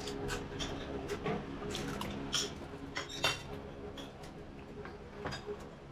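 Metal spoons and forks clinking and scraping against plates and plastic food containers during a meal, a scattering of light, irregular clicks.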